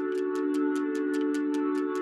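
Background electronic music: sustained synth chords under a quick, even hi-hat tick, about five ticks a second.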